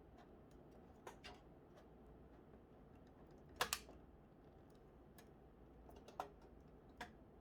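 Faint, scattered clicks and light taps of a graphics card being fitted into a PC: the card pressed into its PCIe slot and screwed to the case bracket. The loudest is a quick double click about three and a half seconds in.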